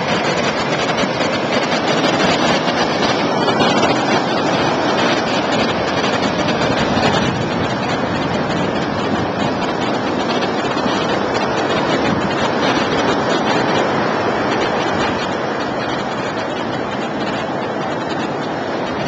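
Tropical-storm wind buffeting the microphone over the steady rush of heavy surf breaking on a rocky shore.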